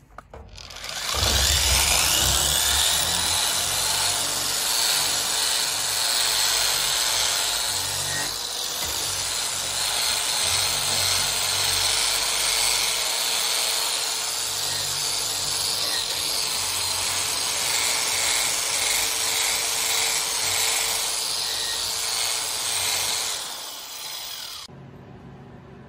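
Eastwood Contour SCT surface conditioning tool with a 60-grit abrasive drum starting up with a rising whine about a second in, then grinding steadily across the steel drill press table to take welded-up holes down flush. It winds down near the end.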